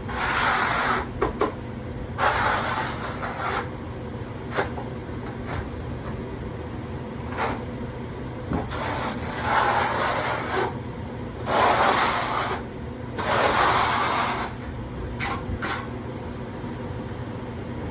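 A hand tool scraping through rapid-set thinset mortar in five strokes, each a second or two long, with short knocks between them, over a steady low hum.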